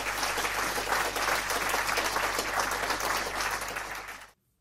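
Audience applause: many hands clapping in a dense, steady patter over a low hum, cutting off suddenly near the end.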